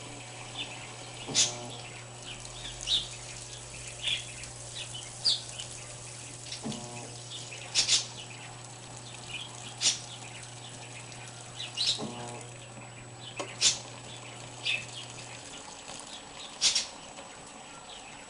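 Electrolux washing machine with water running into it and a steady low hum that cuts off about 15 seconds in. Birds chirp repeatedly throughout.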